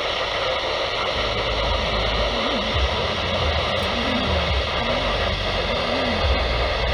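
Radio receiver hissing with static from a weak signal, with faint wavering low tones under the noise.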